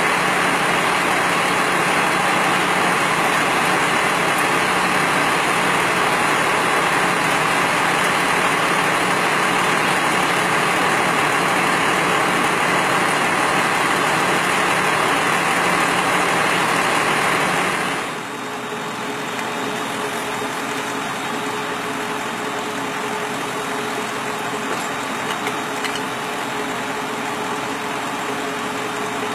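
Fire truck's engine running steadily, a dense hum with hiss. About 18 seconds in it suddenly drops in level, leaving a quieter steady hum with a single clear tone.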